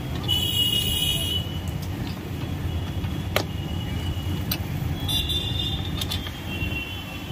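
Steady street traffic rumble, with short vehicle horn toots near the start and about five seconds in. A sharp click about three seconds in comes from hand work on the motorcycle's rear rack mounting.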